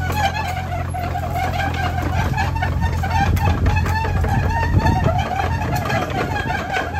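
Hitachi 20U mini excavator's diesel engine running steadily as the machine travels on its tracks, with a wavering whine over it and scattered clanks.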